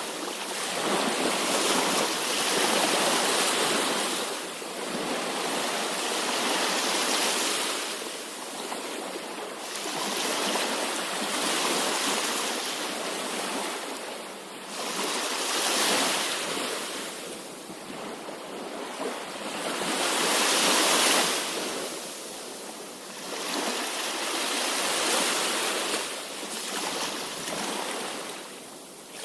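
Sea waves breaking and washing up the shore, the surf swelling and falling away every four to six seconds.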